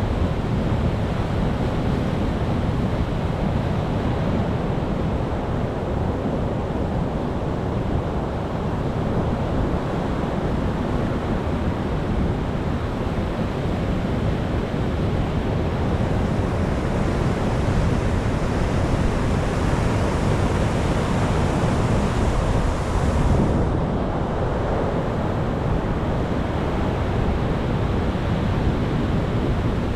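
Sea surf washing in continuously, a steady rushing hiss of waves. It swells brighter about halfway through and then falls back suddenly near three-quarters of the way in.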